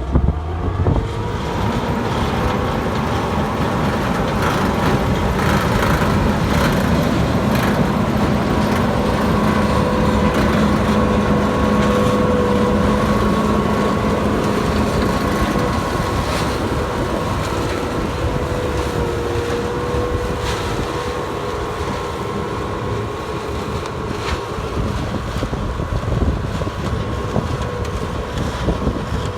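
Farm machinery running steadily under an engine rumble, with a steady whine that wavers slightly in pitch.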